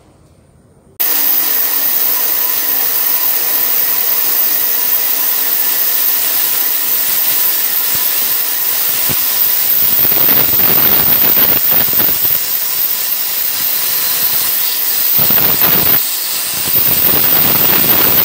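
Band saw running and cutting through a wooden board, turning it to cut out a circle; the sound starts abruptly about a second in and swells louder at times as the blade bites.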